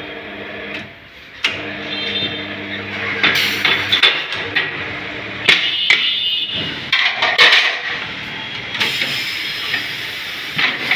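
Metal tools knocking and clanking at irregular intervals as a motorcycle tyre is levered and hammered onto its wheel rim.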